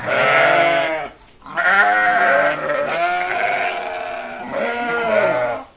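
Goats bleating: one bleat at the start, then a longer run of overlapping bleats from about a second and a half in.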